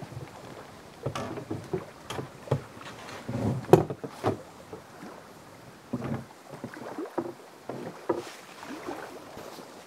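Gear being loaded and shifted in a canoe: an irregular run of knocks, clunks and rustles against the hull, loudest a little under four seconds in, with a short lull around the middle.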